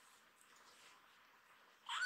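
Near silence, then a kitten's high mew starts right at the end.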